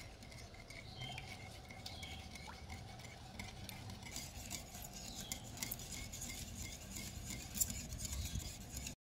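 Metal wire whisk stirring thin batter by hand in a glass bowl: a steady run of small clinks and scrapes of the wires against the glass, with the swish of the liquid.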